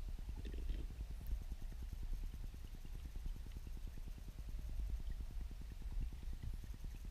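Turbulent weirpool water heard through an underwater camera housing: a muffled, fluttering low rumble with a few faint ticks.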